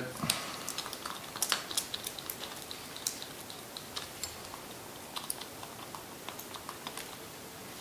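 Quiet, irregular clicks and small handling noises as an AR-15 bolt carrier group is turned in gloved hands and lubed from a small bottle.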